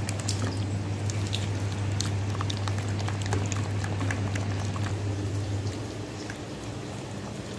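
A hand squishing and mixing a thick yogurt spice marinade in a bowl: wet squelches and irregular small clicks. A steady low hum runs beneath and drops away about six seconds in.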